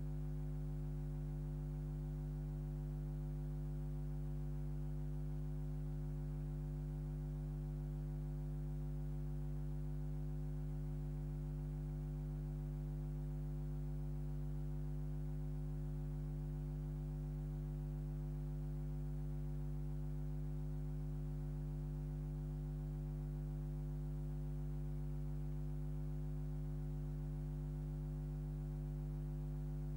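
Steady electrical mains hum, a low drone with a buzz of overtones that never changes, on the soundtrack of a silent home movie.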